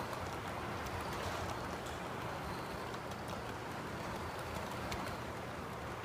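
Model railroad freight cars rolling past on the track: a steady rolling rush of metal wheels on rails, scattered with small irregular clicks.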